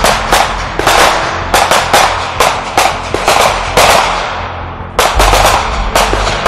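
Rapid, irregular gunshots, more than a dozen, each followed by a long echoing tail, over a low steady hum.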